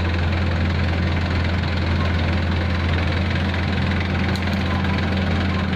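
Diesel engine of road-paving machinery running steadily, a deep, even hum with no change in speed.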